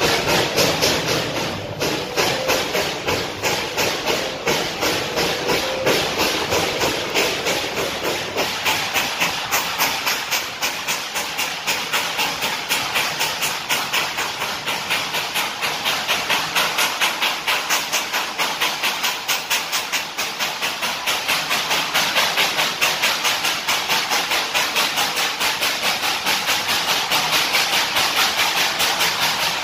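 Narrow-gauge steam locomotive working steadily, its exhaust chuffing in an even rhythm of about four or five beats a second.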